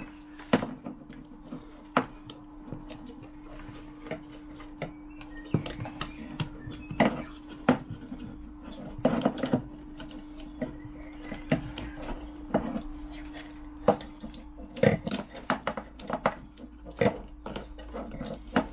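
Black PVC electrical tape being pulled off its roll and wrapped around a bundle of wires, with short irregular rasps of the tape unwinding and small clicks and knocks as the wires and roll are handled against a wooden bench. A steady low hum sits underneath.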